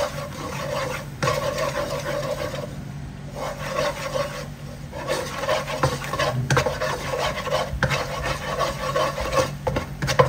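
A plastic spatula scraping and stirring in long, repeated strokes across the bottom of a nonstick wok holding a thin, bubbling orange sauce, with short pauses between runs of strokes.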